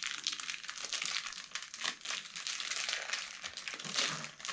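Plastic lollipop wrapper crinkling and crackling in the hands as it is unwrapped.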